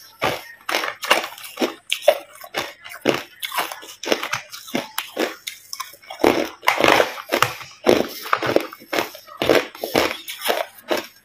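Hard ice being chewed, crunching between the teeth at about two crunches a second in an irregular rhythm, with a louder, denser run of crunching about six seconds in.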